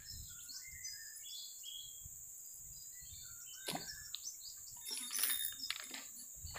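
Small birds chirping, short scattered calls over a steady high-pitched hiss, with a few faint knocks around the middle and later on.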